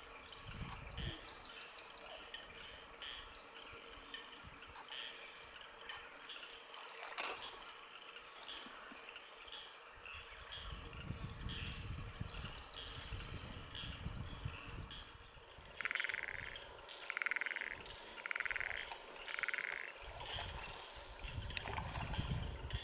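Steady high-pitched drone of insects with chirping calls over it. Near the end come four evenly spaced, stronger calls about a second apart. A sharp click comes about seven seconds in, and there are stretches of low rumble.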